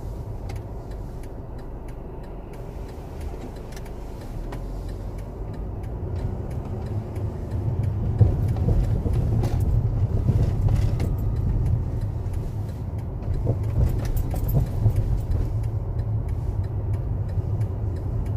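Car road noise heard from inside the cabin: a steady low rumble of engine and tyres on a wet, slushy road. It grows louder from about four to eight seconds in, with faint light rattles and clicks.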